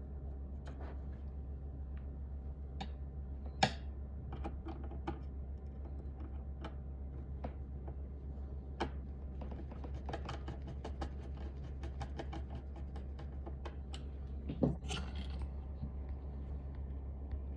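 Scattered sharp clicks and taps of small hard parts being handled, with a quick run of small clicks past the middle and two louder knocks, over a steady low hum.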